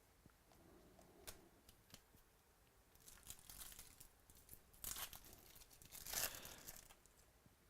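Trading-card pack wrapper being torn open and crinkled, with a few light clicks first. The tearing starts about three seconds in and is loudest in two rushes a little before the end.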